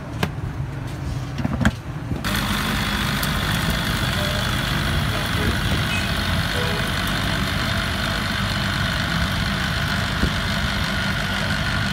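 Electric countertop blender motor switching on about two seconds in and running steadily at speed, churning a jar of mango milkshake.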